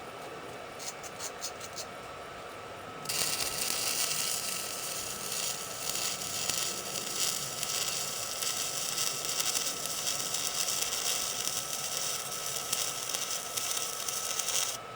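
Electric welding arc crackling steadily, starting about three seconds in after a few light clicks and cutting off suddenly near the end.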